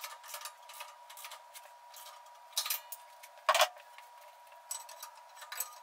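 Light clicks and taps as a straightedge is handled against a bandsaw's wheels and frame during a wheel-alignment check, the two loudest about halfway through, over a faint steady tone.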